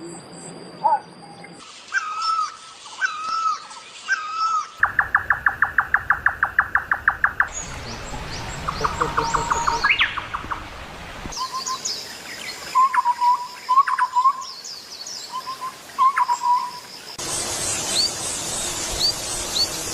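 Assorted birds calling and chirping in several short recordings joined with abrupt cuts. One passage is a fast run of repeated notes at about eight a second, and others are whistled notes and chirps.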